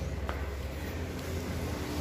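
Steady low hum of an engine running.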